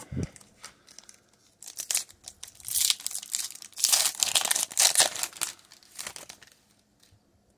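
Pokémon TCG booster pack's foil wrapper crinkling and tearing as it is ripped open by hand, in a run of rustling bursts that starts about a second and a half in and is loudest in the middle.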